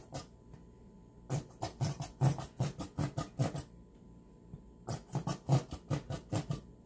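Squeeze bottle of barbecue sauce squirting in short, sputtering spurts, about four a second for a couple of seconds, then another run after a pause.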